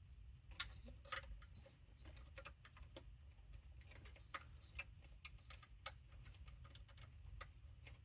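Faint, irregular small clicks and taps of DJ mixer parts being handled and fitted during reassembly, over a low steady hum.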